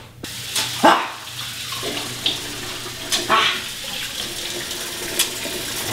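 Kitchen faucet running into a stainless steel sink while hands are washed under the stream. The water comes on just after the start, with a few short knocks over it.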